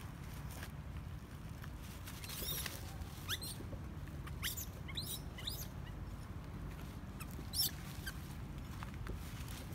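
Baby long-tailed macaque giving about six short, high-pitched squeaks, spaced irregularly, some sliding up in pitch and some down.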